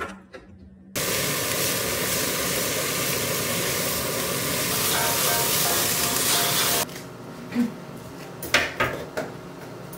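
A spoon clicks in a plastic food container. From about a second in, shredded carrots sizzle loudly in a frying pan for about six seconds. The sound then cuts to a quieter pan of water, where shepherd's purse (naengi) is being blanched, with a few sharp clicks.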